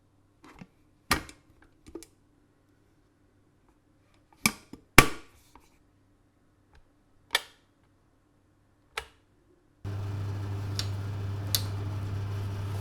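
A kettle lid clicking open and shut, six sharp clicks over the first nine seconds. About ten seconds in, a kitchen extractor fan switches on and runs with a steady hum.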